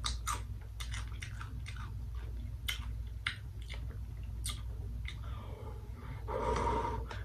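A crunchy Paqui Haunted Ghost Pepper tortilla chip being bitten and chewed close to the microphone, with irregular sharp crunches throughout. Near the end comes a short hummed vocal sound through closed or rounded lips.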